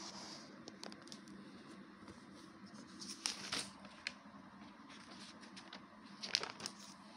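Soft rustling and small clicks of paper pages being handled, with a couple of louder rustles about three seconds in and again near the end, over a low steady hum.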